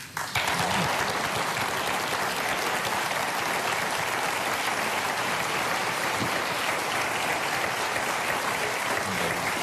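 Studio audience applauding, breaking out suddenly just after the start and holding steady.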